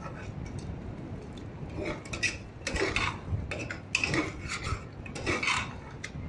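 Metal ladle stirring thick masala gravy in a pressure cooker, scraping against the pot's side and bottom in a run of short rasping strokes that start about two seconds in.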